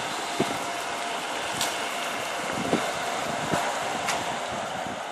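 A steady mechanical hum with a faint constant tone, and a few light knocks over it.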